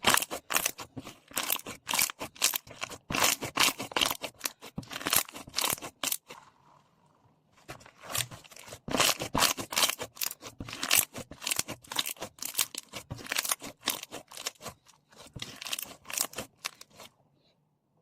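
Foam slime being squeezed and pressed by hand, giving dense crackling and popping. The crackling breaks off for about a second a third of the way through, then runs on and stops just before the end.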